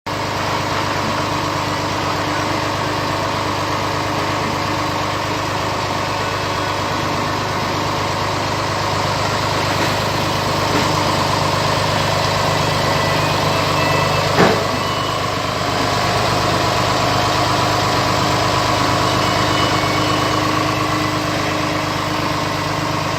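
An engine idling steadily, with one sharp knock about fourteen seconds in.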